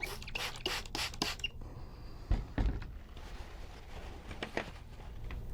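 Small plastic gear parts of a vintage RC toy truck being handled: a quick run of sharp clicks in the first second and a half, then two louder knocks a little after two seconds.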